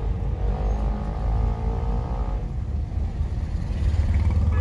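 A motor vehicle engine running: a steady low rumble, with a faint tone rising slowly over the first two seconds, growing louder near the end.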